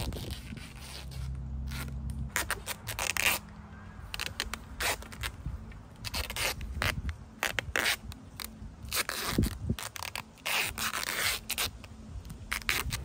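Grey adhesive tape pulled off the roll in a series of short ripping pulls and wrapped around the joint of wooden poles.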